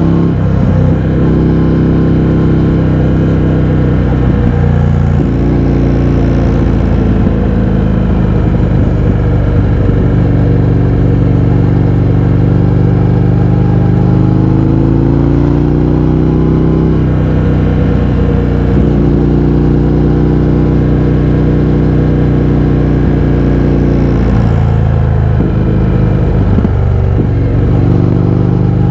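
Indian FTR 1200's 1203 cc V-twin engine running loud through an Akrapovič exhaust with the baffles removed while riding. The engine note climbs and drops with the throttle, with several breaks where the revs fall and build again, as on gear changes.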